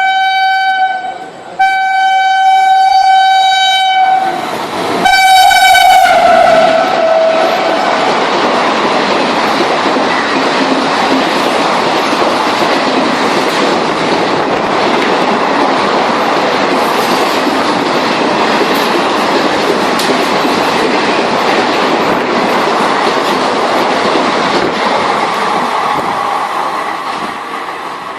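Indian Railways train horn sounding in long blasts, the last one dropping in pitch as the locomotive passes. It is followed by the loud, steady rush and rattle of the train's carriages going by on the rails, easing slightly near the end.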